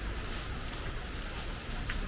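Steady rainfall hissing, with a few single drops landing close by, one about one and a half seconds in and one near the end.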